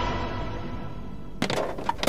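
Background music fading out, then about one and a half seconds in a sudden cut to heavy rain beating on the car's bodywork and windows, heard from inside the car.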